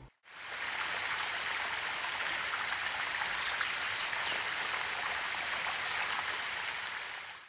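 Running water, a steady rushing stream that fades in just after the start and fades out at the end.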